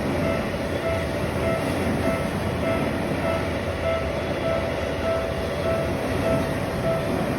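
Japanese railroad crossing warning bell ringing in an even, repeating ding, just under two a second, over the steady rumble of a train passing through the crossing.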